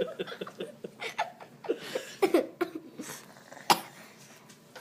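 Soft laughter and murmured voices in a small room, with one sharp click about three-quarters of the way through.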